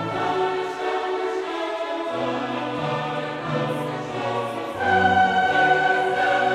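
Background choral music: a choir singing long held notes, swelling louder about five seconds in.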